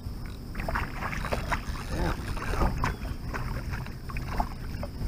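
Hooked crappie splashing and thrashing at the water's surface as it is reeled in beside the boat, in many short, irregular splashes.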